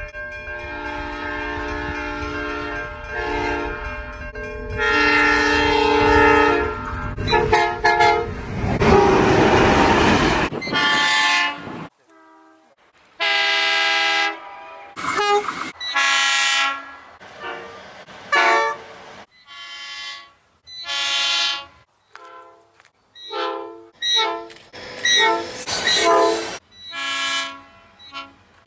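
Train air horns sounding chords of several notes at once. First a horn is held and repeated over the rumble of a passing train, which swells into a loud rush about eight seconds in. After an abrupt cut, a series of short and longer horn blasts follows with brief gaps between them.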